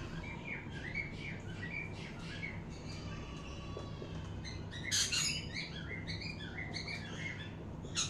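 Small pet parrots chirping over and over, with a louder call about five seconds in.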